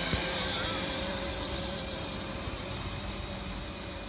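A distant engine drones steadily at one pitch over a low rumble, with a single knock right at the start.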